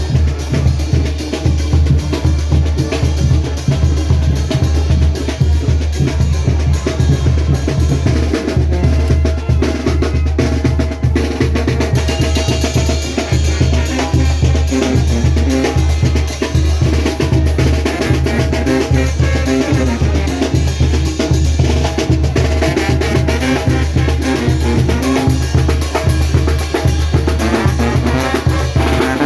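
Mexican brass banda music: a deep bass line and bass drum with snare keeping a steady beat, and the horns' melody coming through more strongly about twelve seconds in.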